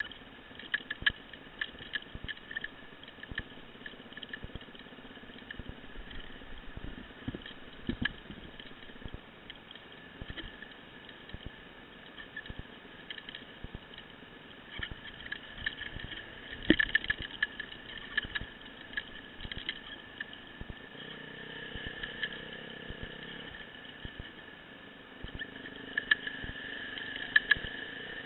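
Dirt bike engine running under way on a rough trail, with many sharp clicks and knocks scattered through it. The engine note changes about two-thirds of the way through.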